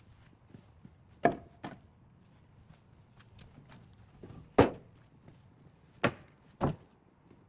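Five irregularly spaced sharp knocks, the loudest a little past halfway, with faint ticks and taps between them.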